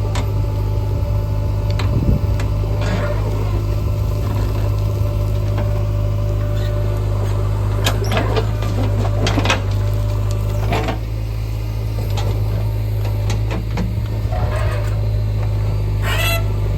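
Heavy diesel engine running steadily, with scattered metallic knocks and clanks over it.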